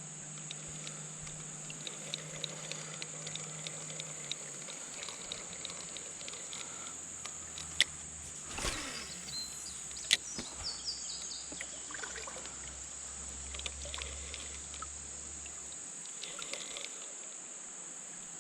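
Riverside ambience: a steady, high drone of insects over trickling water, with scattered small clicks, two sharper clicks and a short swish about halfway.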